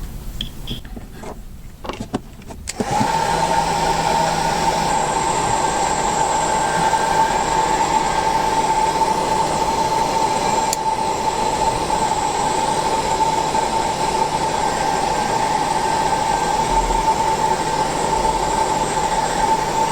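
A few handling clicks, then a small electric motor switches on about three seconds in and runs steadily with a high whine.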